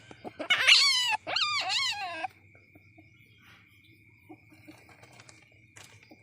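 Young civet calling: a loud shrill cry followed by two wavering, falling mewing calls in the first two seconds or so, then a faint steady high tone.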